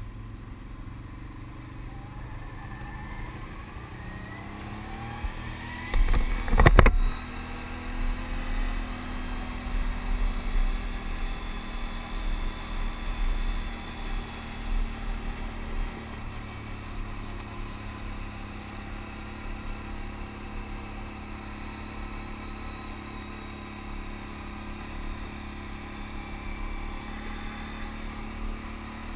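Can-Am Outlander ATV engine pulling away and speeding up over the first several seconds, then running steadily at riding speed, with tyre and wind noise. A loud thump comes about six to seven seconds in.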